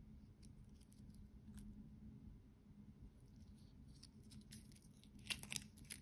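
Near silence with faint handling noise: small clicks and crinkles as a mesh-bracelet wristwatch and its paper hang tag are turned in the fingers, with a cluster of sharper crinkles about five seconds in.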